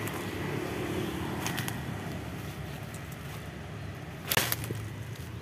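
Dry grass and weeds rustling and crackling as someone pushes through them on foot, with a louder crackle about four seconds in, over a steady low hum.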